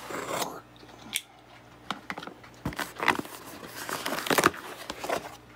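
A blade slitting the packing tape along the seam of a cardboard box, in irregular scratching strokes with cardboard rustling and a few sharp clicks.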